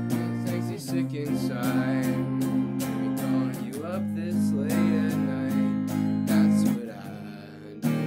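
Electric guitar strumming sustained chords, changing chord about every three seconds, with a short fade just before a fresh strum near the end.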